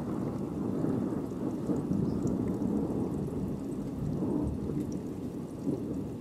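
Rolling thunder from a winter thunderstorm, a deep rumble that slowly fades, with faint rain ticking underneath.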